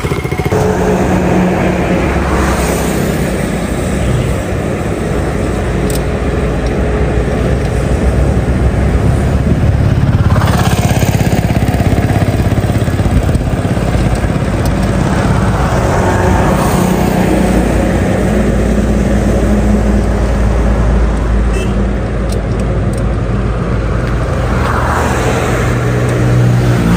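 BMW G310RR's single-cylinder engine running through an aftermarket exhaust with its dB killer still fitted, the revs rising and falling several times.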